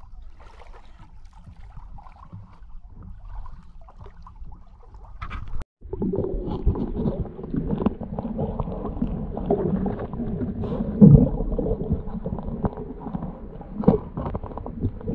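Sandy seabed being dug with a hand tool, heard through an underwater microphone: a muffled rumble and scraping with dull knocks, the strongest about eleven and fourteen seconds in. Before that, a few seconds of quieter water sloshing at the surface.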